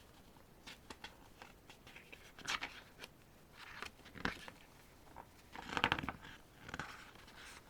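Paper handling: a few short rustles and crackles as the glossy pages of an album photo book are turned and handled.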